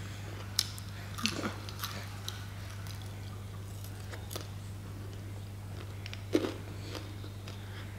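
A person chewing a mouthful of grilled meat, with a few short wet clicks and smacks, loudest about half a second in, just after a second, and again near the end. A steady low hum lies underneath.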